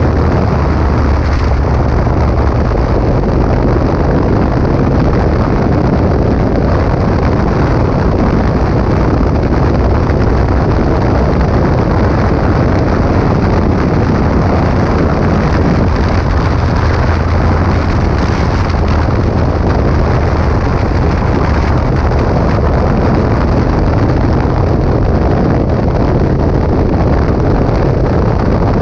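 Steady wind rush and buffeting on the microphone of a motorcycle riding at road speed, with the bike's engine and tyre noise blended underneath.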